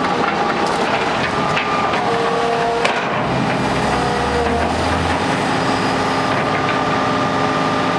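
Kubota KX200-2 hydraulic excavator running: a steady engine noise with whining tones that step up and down in pitch, a deeper hum between about three and five seconds in, and a few sharp metallic clicks.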